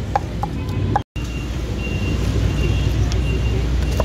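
A few sharp knocks of a cleaver chopping grilled pork on a wooden stump block in the first second. After a brief dropout comes a steady low rumble of street traffic with only an occasional knock.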